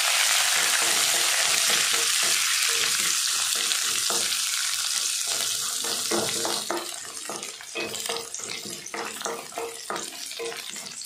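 Mustard seeds, urad dal, chana dal and dried red chillies frying in sesame oil in a kadai, sizzling steadily while a wooden spatula stirs them. About six and a half seconds in the sizzle drops away suddenly, leaving the spatula's scrapes and taps against the pan.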